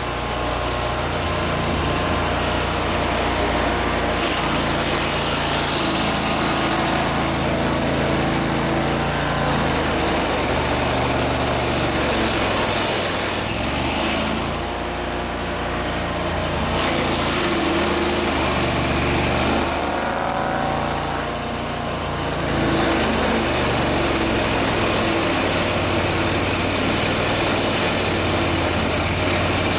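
An engine running without a break, its note shifting and gliding at times, with the level dipping slightly twice partway through.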